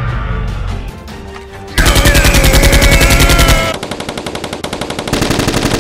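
Rapid automatic gunfire sound effects, a fast even rattle of shots, starting about two seconds in after a quieter stretch of action music and running over the music.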